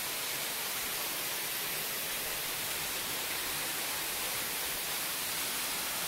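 Small waterfall running steadily: water dropping through a hole in a rock overhang and splashing down a rock cascade makes an even, unchanging hiss.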